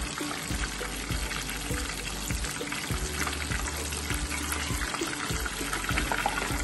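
Hot oil sizzling and crackling steadily around beer-battered fish fillets deep-frying in a pot.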